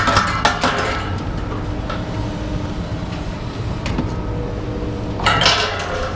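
Loose scrap rattling and knocking over a steady low engine hum. There are several sharp knocks in the first second and a denser burst of clatter about five seconds in.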